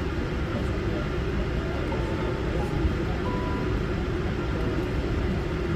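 Airliner cabin noise: a steady, even drone with a deep low rumble and a hiss above it.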